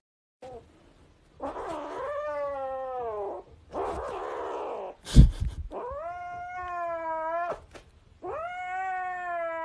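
A kitten crying in three long, drawn-out meows, the first sliding down in pitch and the other two held steady. Between the first two cries there is a breathy noisy stretch, and a loud thump comes about five seconds in.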